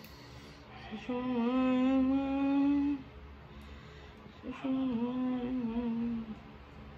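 A woman humming two held, wordless phrases of about two seconds each, with a short pause between them.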